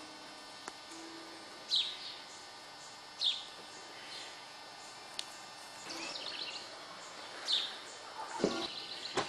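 A bird calling outdoors: loud, sharp down-slurred chirps three times, with short quick trills between them, over a low steady background. There are a couple of dull thumps near the end.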